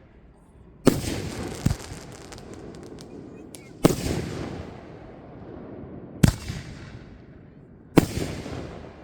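Fireworks going off: five sharp booms spaced one to two and a half seconds apart, each trailing off in a rolling echo, with a patter of crackling after the second.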